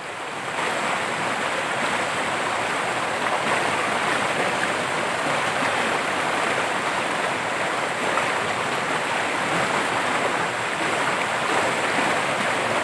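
A swollen, muddy river in flood rushing over rocks: a steady, loud rush of water.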